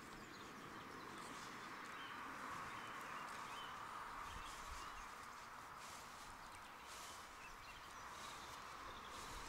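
Quiet outdoor ambience with faint bird calls, and the soft dry rustle of breadcrumbs as hands roll a ball through them.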